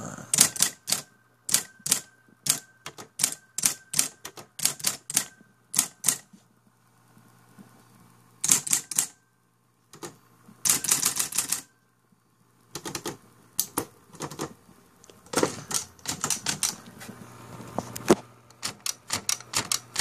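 Royal Apollo 10 electric typewriter typing: quick runs of sharp clacks as its motor-driven typebars strike the paper, with the motor's steady low hum underneath. Typing stops briefly twice, around the middle, then resumes.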